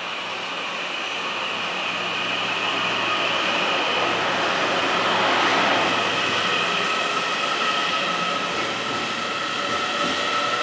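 Train running along the platform track, a steady rumble with thin high whines, growing louder to a peak about halfway through and then easing slightly.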